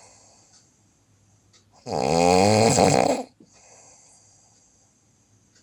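A sleeping person snoring: one loud, rasping snore on the in-breath about two seconds in, with quieter breathing out before and after it.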